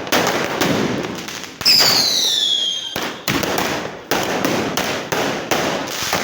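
Fireworks going off in a rapid string of sharp bangs and crackles. A whistling firework starts about a second and a half in, its shriek falling in pitch for over a second.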